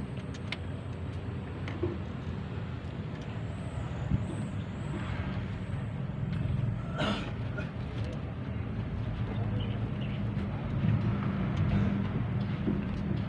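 Steady low rumble of vehicle traffic and engines, with scattered light clicks and a short hiss about seven seconds in.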